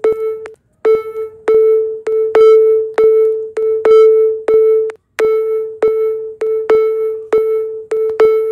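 The PiccyBot app's processing sound, playing on a smartphone while the app compresses a video: a looping electronic tone struck by sharp clicks about twice a second. It drops out briefly twice, about half a second in and about five seconds in.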